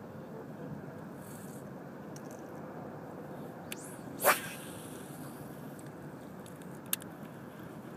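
A fishing rod swished hard through the air in an overhead cast: one short, loud whoosh a little past halfway, with a faint click just before it. A sharp click from the reel comes near the end, over a steady background hiss.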